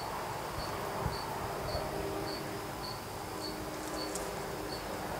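A cricket chirping steadily, a short high chirp repeated at an even pace of nearly two a second.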